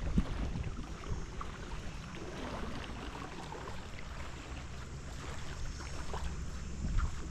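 Wind rumbling on the microphone over a steady wash of surf on the beach, with gusts about half a second in.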